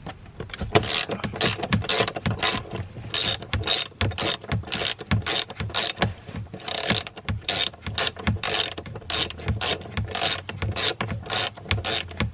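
Hand ratchet and socket clicking in quick back-and-forth strokes, about three a second, turning out a seat mounting bolt.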